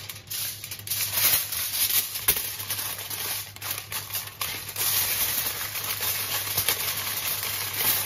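Aluminium foil crinkling and rustling in irregular crackles as it is folded and pressed tightly around a fish by hand.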